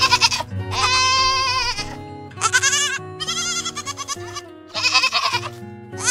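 Young goat bleating repeatedly, about five quavering bleats, the longest lasting about a second, over steady background music.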